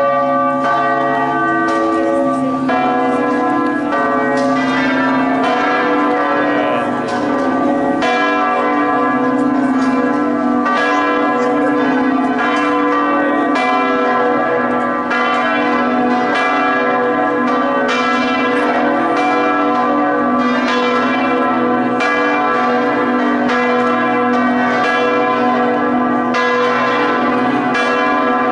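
The full peal (plenum) of Prato Cathedral's bells: all the bells swinging and striking together in a continuous, loud clangour of overlapping strokes at several pitches.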